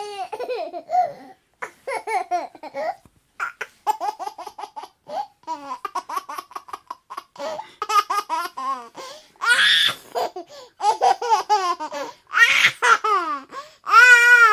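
A baby laughing: runs of short, high-pitched laugh pulses, loudest about ten seconds in and near the end.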